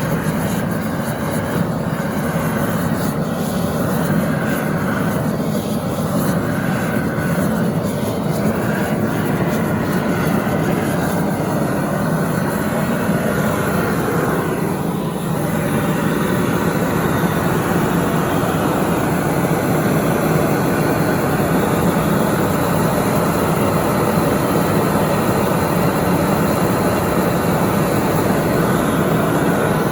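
Gas brazing torch flame burning with a steady rushing roar while silver soldering a model engine crankshaft. It gets slightly louder about halfway through.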